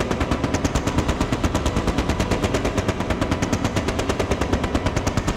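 Machine gun firing a continuous burst of rapid, evenly spaced shots, about nine a second.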